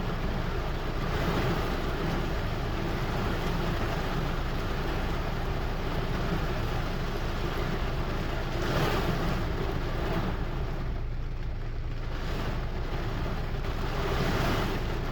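Steady rain with wind: a continuous hiss over a deep rumble, swelling briefly three times in gusts.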